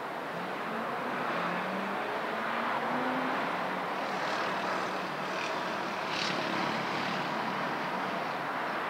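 Distant big-city traffic noise, with a vehicle engine whose tone rises in short steps over the first few seconds as it accelerates.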